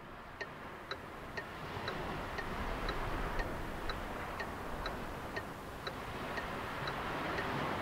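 Opening of an electronic French house track: a steady clock-like tick, about two ticks a second, over a hiss that slowly swells.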